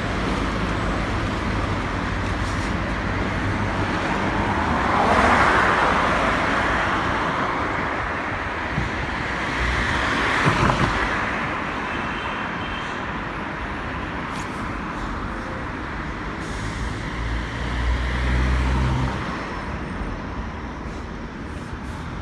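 Busy city street traffic, with vehicles driving past close by. The loudest passes come about five and ten seconds in, and a low engine rumble rises and falls around eighteen seconds in.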